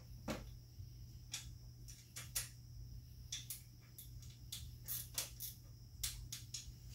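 Scattered light clicks and taps of hand tools and parts being handled during work on the motorcycle's fork clamps, coming irregularly about once or twice a second, over a steady low hum.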